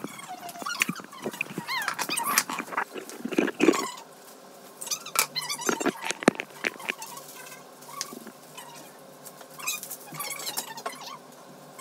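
A small dog whining and yelping in short, high-pitched wavering squeals, on and off, among knocks and rustles of things being handled.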